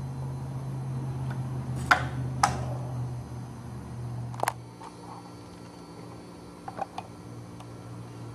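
A few sharp metallic clicks and taps from hand tools being handled against an aluminum plate and board: two about two seconds in, one near the middle, and a quick little cluster near the end. A steady low hum runs underneath.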